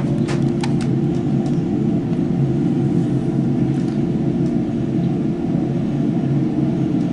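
Steady rumble inside a traction lift car as it travels up the shaft, with a few faint clicks in the first second.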